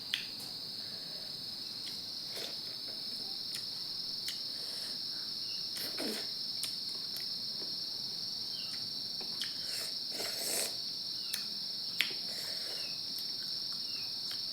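Steady, high-pitched background insect chorus, with scattered soft clicks and smacks from eating.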